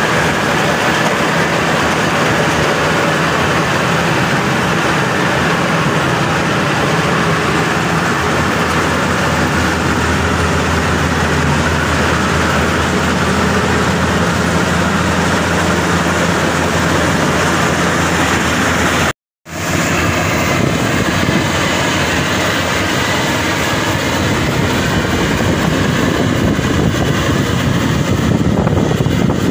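Maxxi Bimo Xtreme 2.0 L combine harvester running steadily while harvesting rice: a continuous engine drone with machinery noise over it. The sound cuts out for a split second about two-thirds of the way through, then the same running noise resumes.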